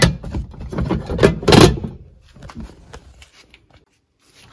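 Rubbing, scraping and clicks close to the microphone, loudest in the first two seconds, then a few faint clicks: handling noise as the camera is moved.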